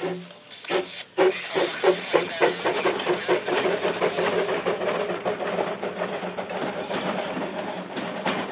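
Pair of Quarry Hunslet narrow-gauge steam tank locomotives working past double-headed: sharp exhaust chuffs start about a second in, several a second, and thicken into a dense, overlapping chuffing with steam hiss as the second engine comes by.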